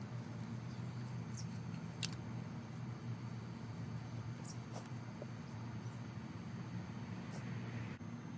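Outdoor insects, crickets, trilling steadily in a high even pulse over a low background hum, with a few faint clicks.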